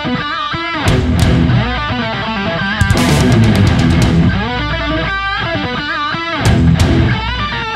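Background rock music with electric guitar lines over bass.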